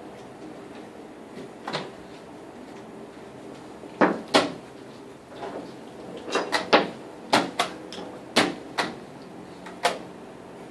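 Sharp wooden knocks of chess pieces set down on the board and the chess clock's buttons being hit, about a dozen at an uneven, quickening pace, over a faint steady room hum.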